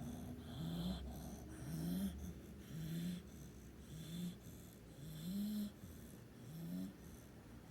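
A sleeping dog snoring in a steady rhythm, about six snoring breaths, each one a short nasal tone that rises in pitch.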